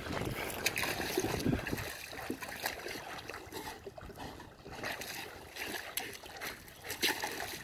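Faint water splashing and sloshing of a Belgian Malinois paddling as it swims away across a canal, with a low rumble over the first two seconds.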